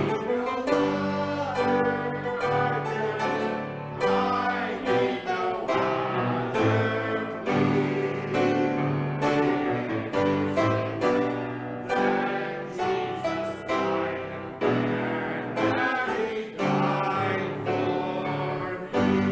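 Slow hymn music led by piano, the chords and melody changing about once a second.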